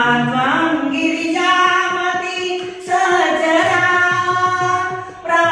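A woman singing a devotional hymn in long, drawn-out phrases, with short breaks for breath between them.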